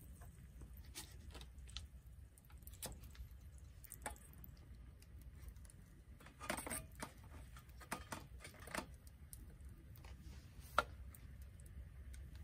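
Scattered light taps and clicks at an irregular pace over a low steady rumble, with a brief cluster of them past the middle and one sharp tick near the end.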